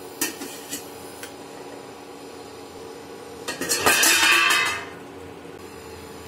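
Steel utensils on a kadai holding frying okra: a few light clinks near the start, then about a second of louder scraping and clattering of steel tongs in the pan a little after the middle.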